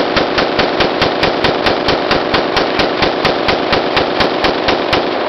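Vulcan Arms V-15 AR-15 rifle firing a long, rapid, evenly spaced string of shots, about four to five a second, stopping just before the end.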